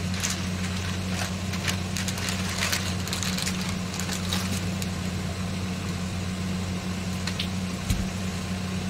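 A steady low electric motor hum, with crinkling of a plastic flour packet and handling of a steel bowl of flour in the first half, and a single thump about eight seconds in as the bowl is moved.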